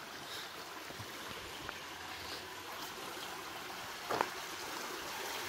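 Small mountain creek running over rocks: a steady rush of water, heard at the mouth of a curved steel tunnel built over the stream, which is thought to amplify the creek's sound. A brief short knock about four seconds in.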